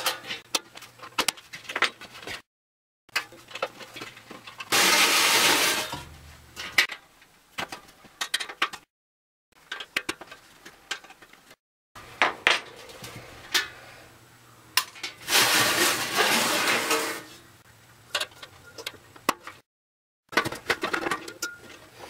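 Light metal clinks and clicks of a screwdriver working screws out of an RV furnace's sheet-metal blower housing, with two longer rasping stretches of a second or two each. A few short dead-silent gaps break it up.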